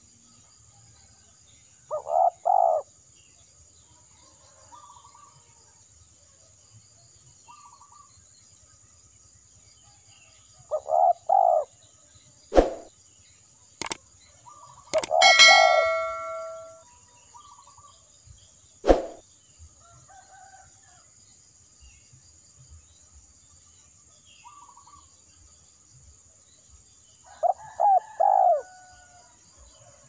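Spotted dove cooing in short multi-note phrases three times, about two seconds in, around eleven seconds and near the end, over a steady high insect drone. In the middle come a few sharp clicks and a ringing chime.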